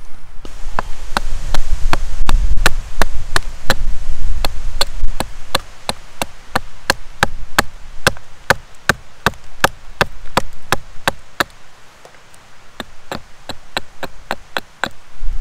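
Small carving hatchet chopping a hardwood fork blank against a stump block, in quick light strokes about three a second as the blank is roughed out. The strokes thin out and grow quieter in the last few seconds.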